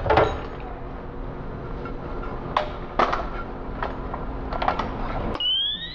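Knocks and clanks of a firefighter's SCBA air pack, its frame, straps and hose, being handled and set down on a concrete floor. Near the end a rising whistling tone starts.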